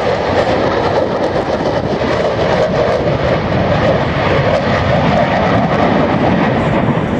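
An F-16 fighter's jet engine, a loud, steady roar as the jet flies past.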